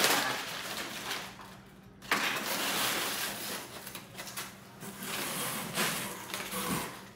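Crumpled brown packing paper rustling and crackling in a cardboard box as hands dig through it and a bristly coir doormat is pulled out, in three bursts of rustling with short pauses between.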